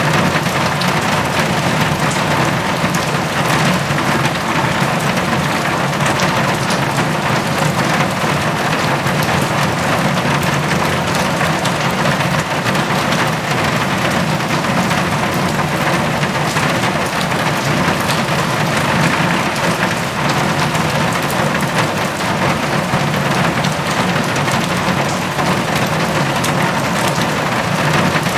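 Heavy rain drumming steadily on a metal roof, a dense even patter of drops on sheet metal.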